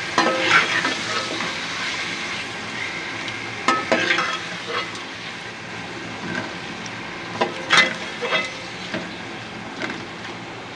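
Raw chicken pieces sizzling in hot oil in a metal pot as a slotted metal spoon stirs and turns them. The spoon scrapes and clinks against the pot, loudest just after the start, around four seconds in and around eight seconds in, over a steady frying hiss.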